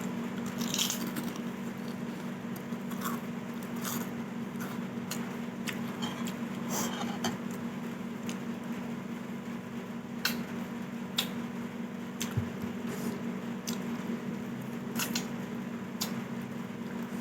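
Close-up eating sounds: wet chewing and mouth smacking with scattered short clicks, over a steady low hum.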